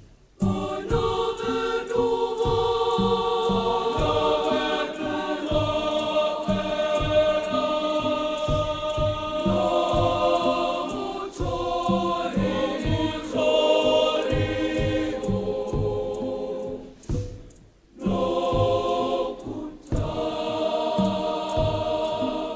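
Girls' choir singing a choral set piece in several-part harmony, over a steady low beat. The singing breaks off briefly twice near the end.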